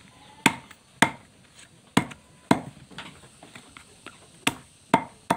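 Machete blade chopping lemongrass stalks laid on a wooden plank, crushing them: seven sharp chops, mostly in pairs, with pauses between.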